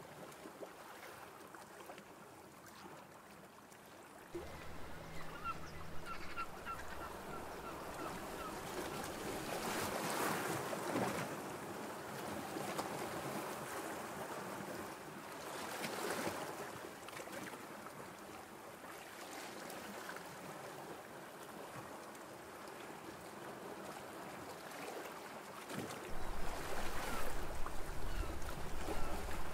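Outdoor wind and water ambience: a steady hiss of moving water with swells, and low rumbling of wind on the microphone that sets in about four seconds in and grows louder near the end. A short run of faint high chirps comes about six seconds in.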